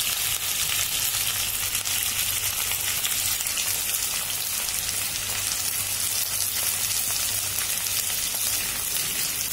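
Sliced onions, green chilies and capsicum sizzling steadily in hot mustard oil in a kadai.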